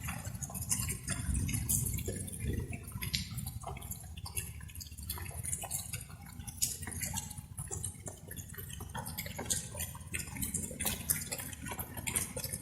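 Light rain: irregular drops pattering and dripping, over a steady low rumble.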